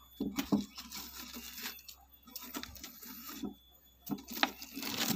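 Scattered light clicks and short rustles of fingers handling dry, rotting honeycomb in a wooden hive box, growing denser near the end as the comb is picked apart.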